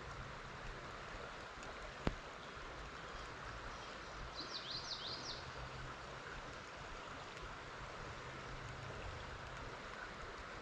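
Steady rush of a creek's flowing water. A bird calls a quick run of about six high chirps around four to five seconds in, and there is a single sharp click about two seconds in.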